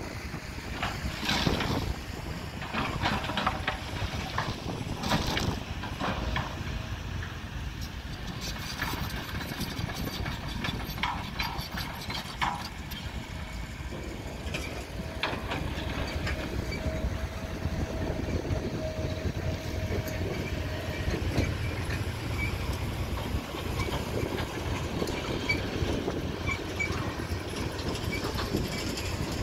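Kobelco long-reach excavator's diesel engine running steadily as the machine works, with scattered knocks and clatters through the first half. A faint steady whine holds for several seconds in the middle.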